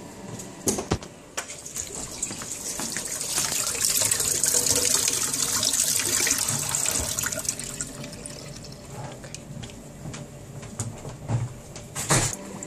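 Tap water running into a sink as coffee machine nozzle parts are rinsed under it; the flow builds up, runs strongest for a few seconds in the middle, then eases, with a few sharp knocks of the parts near the start and the end.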